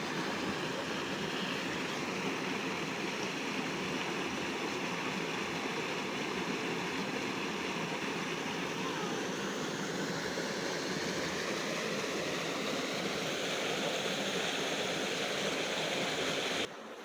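River water rushing steadily, an even roar without pauses that cuts off suddenly near the end.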